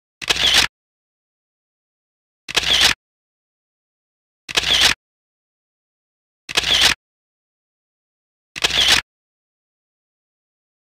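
Camera shutter sound effect, a short click-and-snap repeated five times, about every two seconds, with dead silence between.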